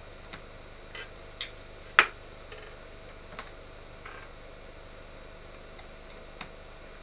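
Patch cable plugs clicking into and out of the jacks of a PAiA modular synthesiser, about eight irregular clicks over the first four seconds and one more near the end, the sharpest about two seconds in.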